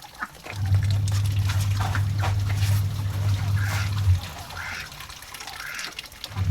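Ducks quacking, a few short calls in the second half. A loud steady low hum starts about half a second in and stops about four seconds in.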